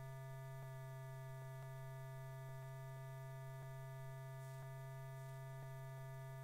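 Steady low electrical hum on the soundtrack, with a few fixed higher tones above it and a faint tick about once a second.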